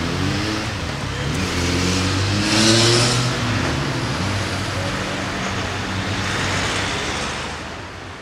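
Cars pulling away and accelerating across the level crossing once the barriers lift, with engines rising in pitch and one car passing close about three seconds in. The traffic noise fades out near the end.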